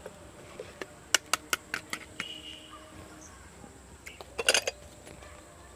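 Light metallic clicks and clinks of kitchenware being handled around an aluminium pot: a run of sharp single clicks about a second in, then a short cluster of clinks near the end.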